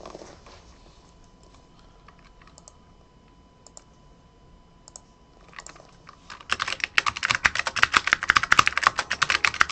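Typing on a computer keyboard: a few faint scattered clicks at first, then rapid keystrokes from about two-thirds of the way through.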